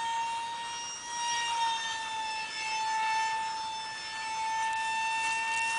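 GWS EDF30 micro electric ducted fan, spun by a small high-kv brushless inrunner, whining in flight: one steady high tone whose pitch wavers slightly, with fainter tones gliding up and down above it.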